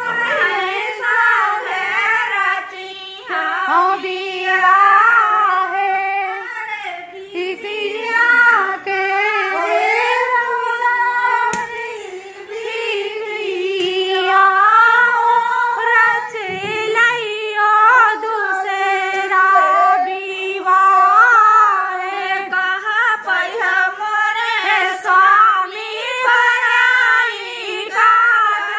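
Women singing a devotional folk song together, long sung lines that waver and bend in pitch without a break.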